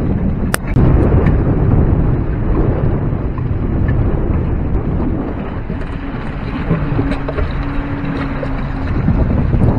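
Wind buffeting the microphone in a loud, steady low rumble over water rushing and splashing along the hull of a small Siren 17 sailboat under way, with one sharp tick about half a second in.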